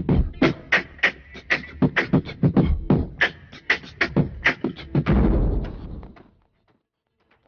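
Percussive commercial soundtrack: a fast, beatbox-like rhythm of sharp clicks and thumps, about four a second, giving way about five seconds in to a low sustained tone that fades out.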